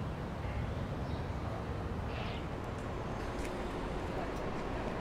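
Outdoor city ambience: a steady low rumble of distant traffic with a few faint bird chirps, the clearest about two seconds in.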